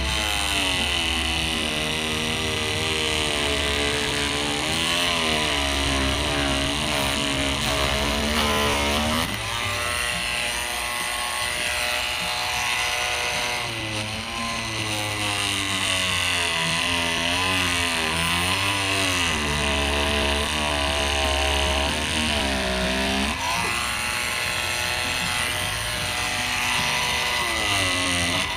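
Ingco 20V cordless oscillating multi-tool cutting into a durian's husk. Its motor note dips and recovers again and again as the blade bites into the rind, over a steady high whine.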